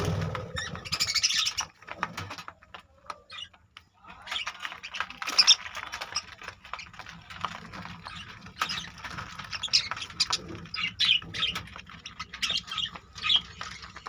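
Budgerigars chirping and squawking in quick, short calls, with a quieter stretch about two to four seconds in.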